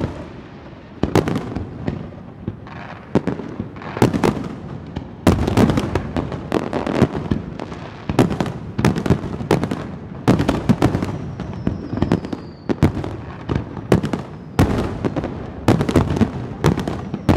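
Aerial firework shells bursting in quick succession, a sharp boom every half second to second, with crackling between them. A faint falling whistle sounds about eleven seconds in.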